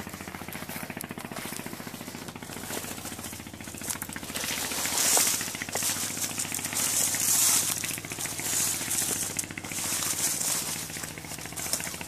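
Swishing of shrub branches and leaves brushing past while walking a narrow forest path, coming in repeated bursts from about four seconds in, over a steady low hum.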